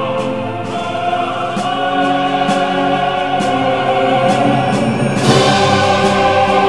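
Orchestral film music with choral singing in held notes; the music swells about five seconds in.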